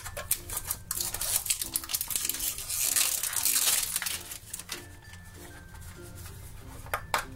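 Foil wrapper crinkling and tearing as it is peeled off a small plastic blind box, with sharp clicks of the hard plastic box being handled. The crinkling is thickest in the middle and dies down toward the end.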